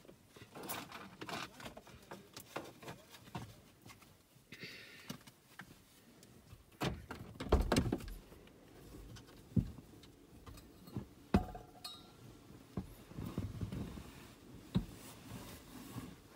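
Scattered clicks, knocks and rustling of small things being handled inside a car's cabin, with a few louder thumps in the middle.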